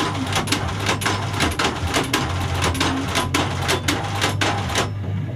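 Landis shoe-sole stitching machine running as a sole is fed through it: the needle mechanism clacks about three times a second over a steady motor hum. The clacking stops briefly near the end, then starts again.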